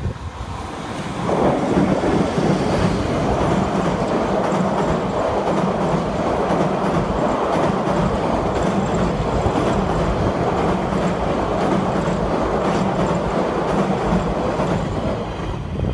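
Hokutosei sleeper train passing close by: an EF510 electric locomotive followed by a long rake of blue 24-series sleeping cars, wheels running on the rails. The noise rises sharply about a second and a half in as the locomotive draws level, then holds steady as the coaches roll past.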